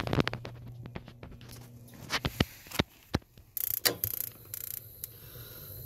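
Spark ignition trial on a Carrier BWB cast iron gas boiler: a quick run of sharp clicks from the pilot spark igniter over a low hum, then a few scattered single clicks and brief rustling near the middle.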